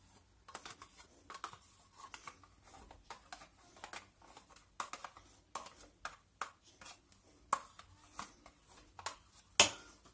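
Metal spoon scraping fruit yogurt out of small plastic cups, with irregular light clicks and taps and one louder click near the end.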